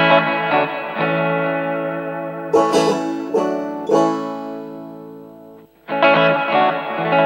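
Background music: a plucked-string instrumental in a country or bluegrass style. Chords are struck and left to ring out, a second time about six seconds in, with quicker picked notes in between.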